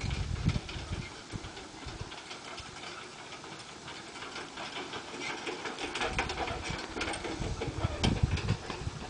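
Young Andalusian-Clydesdale cross horse trotting on arena sand while pulling a two-wheeled training cart: muffled hoofbeats and the rattle of the cart. Low rumbling bursts come near the start and again from about six seconds in.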